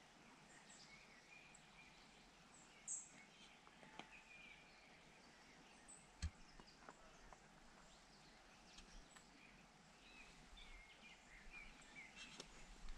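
Near-silent outdoor ambience: faint, scattered bird chirps over a low hiss, with a few light sharp knocks, the loudest about six seconds in.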